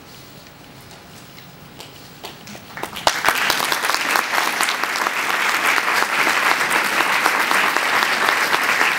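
Audience applauding: after a couple of quiet seconds a few scattered claps start, swelling into full, steady applause about three seconds in.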